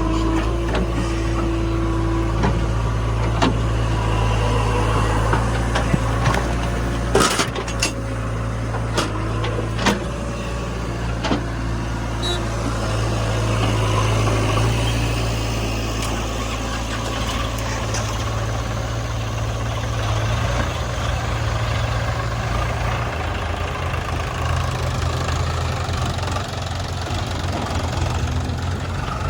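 Diesel engine of a JCB 3DX backhoe loader running steadily as the machine works, with a few sharp clanks and knocks about seven to eleven seconds in.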